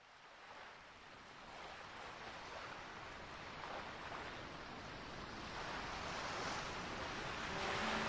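Sea waves washing on a shore, fading in from silence and slowly growing louder. Acoustic guitar notes begin near the end.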